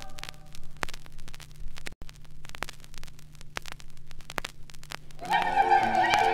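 Vinyl LP surface noise in the run-out between sides: scattered crackles and pops over a steady low hum, broken by a split-second dropout about two seconds in. Music starts again about five seconds in.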